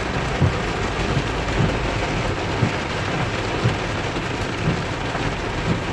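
Heavy downpour drumming on a car, heard from inside, with a low thump about once a second.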